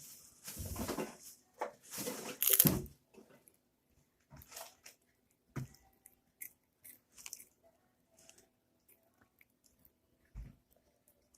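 Wafers being crunched and chewed: two louder crunchy bursts in the first three seconds, then scattered small crunches and clicks.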